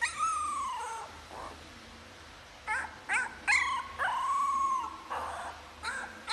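Young puppy trying to howl: a wavering howling cry at the start, a quick run of short yips around three seconds in, then a longer arched howl about four seconds in, a breathy huff, and one more short yelp near the end.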